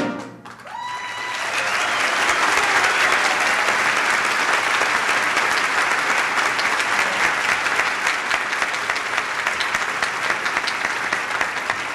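Large audience applauding, swelling over the first two seconds as a piece of music ends, then holding steady.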